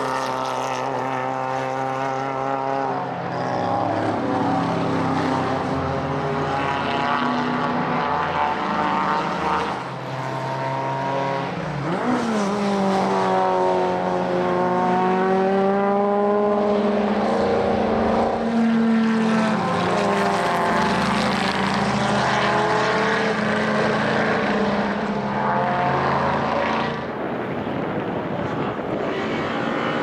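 Historic racing cars' engines running hard past a circuit corner, one after another, their pitch climbing and dropping with gear changes and throttle; a dip then a sharp rise in pitch about twelve seconds in.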